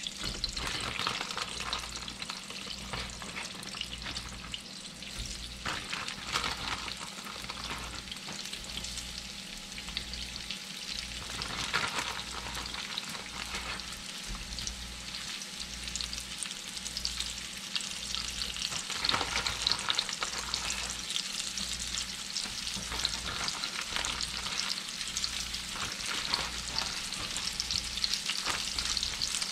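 Breaded chain pickerel pieces sizzling as they fry in a pan of hot fat, a steady hiss that flares louder a few times as more pieces are laid into the pan.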